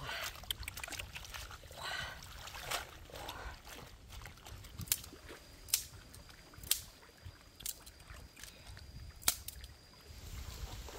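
Hands swishing leafy greens in water in a woven basket, splashing and sloshing for the first few seconds. Then five sharp, widely spaced knocks of wood on stone as firewood is handled at a stone fire pit.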